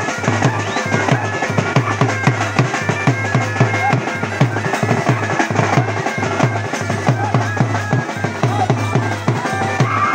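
Village wedding band music: a big bass drum and other drums beating a fast, steady rhythm under a wind instrument holding long melody notes.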